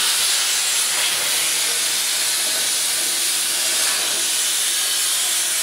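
Torch of a CNC plasma cutting machine hissing loudly and steadily during a test run, a constant rush of air and plasma arc.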